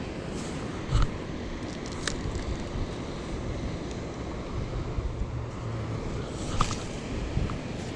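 Steady rushing noise of river water with wind buffeting the microphone, broken by a few short sharp clicks about a second, two seconds and six and a half seconds in.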